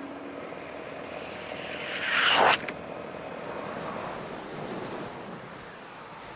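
Ski jumper's skis hissing down the in-run track, swelling louder and cutting off sharply at the take-off about two and a half seconds in. A steady rushing noise continues through the flight.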